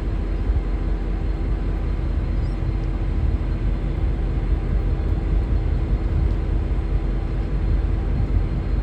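V/Line N class diesel-electric locomotive idling: a steady, deep engine rumble with a constant hum above it.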